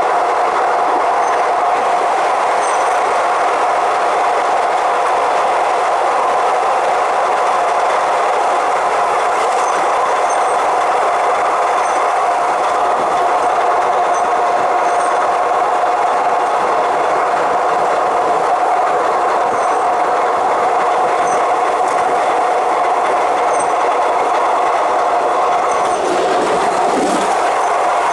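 Suburban electric train running at speed on an elevated rail line, a steady drone with a constant tone through it and a few faint light ticks.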